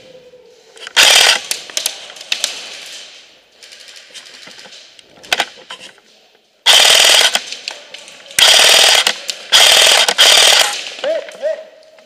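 Airsoft rifles firing full-auto bursts: a loud burst about a second in, a brief one a little past the middle, then three longer bursts of about a second each in quick succession.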